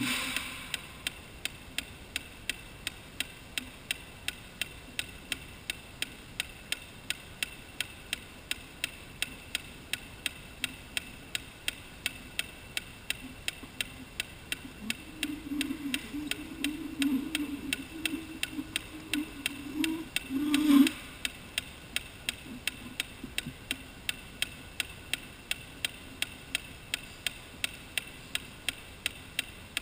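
Steady, even ticking, about two and a half ticks a second. From about halfway a low wavering hum joins in, swelling briefly and stopping about two-thirds of the way through, while the ticking goes on.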